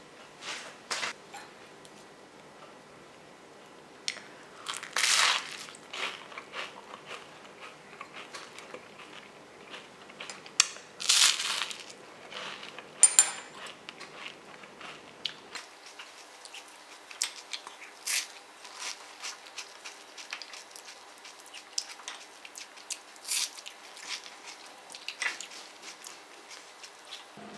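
A dry Weet-Bix wheat biscuit being broken and crumbled by hand into a bowl of yogurt: crisp crunching and crackling. There are two longer, louder crunches about 5 and 11 seconds in, then a run of many small crackles.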